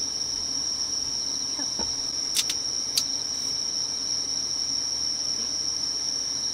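Crickets chirring in a steady, continuous high-pitched chorus, with two sharp clicks a little over two seconds in, half a second apart.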